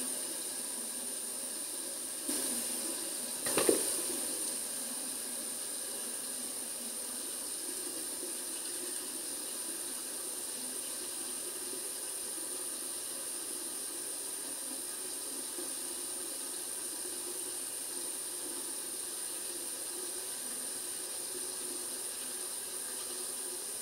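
Steady, even hiss of background noise, with a couple of brief knocks a few seconds in.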